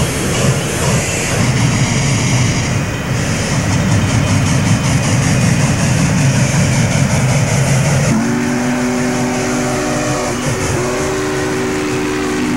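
Norfolk & Western Class J 4-8-4 steam locomotive 611 running past at speed with a steady, noisy rumble. About eight seconds in, its steam whistle sounds a chord in two long blasts with a short break between them.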